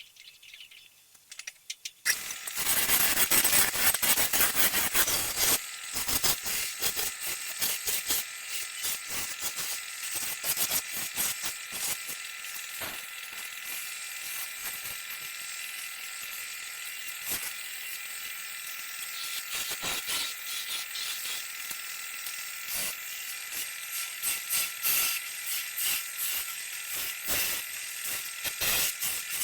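Wood lathe turning a wooden pitcher, a turning tool cutting into the spinning wood. A loud rush of cutting starts about two seconds in and eases after about six seconds into a steady whine with rapid rattling clicks.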